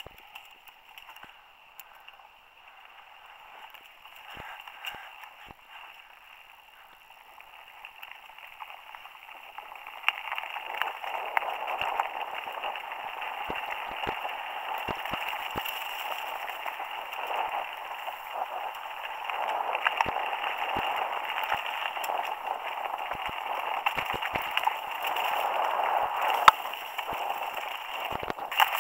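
Mountain bike ridden along a dirt singletrack, heard from a camera mounted on the bike: a steady rushing of wind and tyre noise that grows louder about ten seconds in, with scattered knocks and rattles as the bike goes over bumps.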